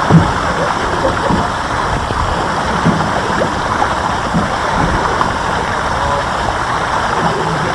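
Steady splashing of a pond fountain aerator's spray falling back onto the water.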